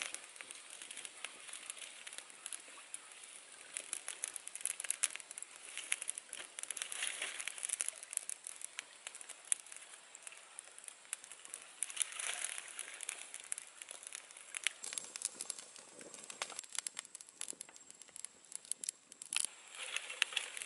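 Small campfire of dry twigs crackling with many irregular sharp pops, mixed with the rustle and scrape of dry sticks being handled and pushed into the flames.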